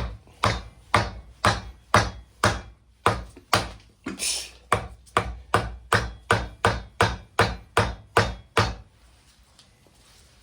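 Hammer blows on a block of wood set on the pistons of a seized Kubota V2203 diesel, about twenty sharp strikes at roughly two a second, quickening after a short pause near the middle, to break the stuck pistons free. The engine is rusted solid and does not turn with a pipe wrench on the crank.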